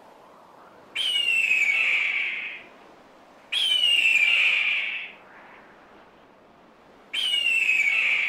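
Hawk screaming three times: long, hoarse calls that fall in pitch, each about a second and a half, the third cut off at the end.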